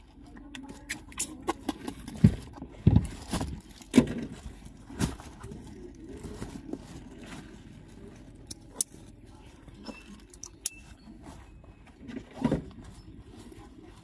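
Bags and backpacks being handled at a car's open boot: scattered thumps, clicks and rustles, the loudest knocks in the first few seconds.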